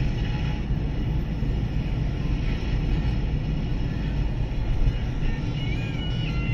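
Steady low rumble of road and tyre noise from a car driving through a road tunnel, heard from inside the cabin.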